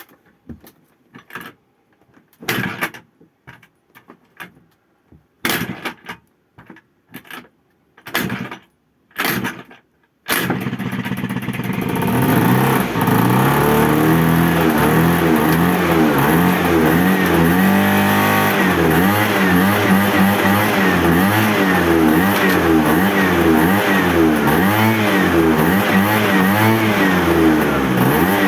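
Scattered knocks and clicks, then about ten seconds in a Honda scooter's engine starts and runs on steadily, overlaid with a rapidly wavering 'turbo' sound.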